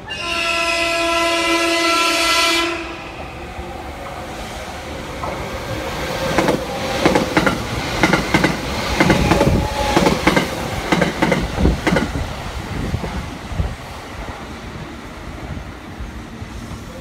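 A white limited-express electric train sounds one long horn blast, about two and a half seconds, as it approaches. It then runs close past with a fast clickety-clack of wheels over rail joints that grows loud and then fades.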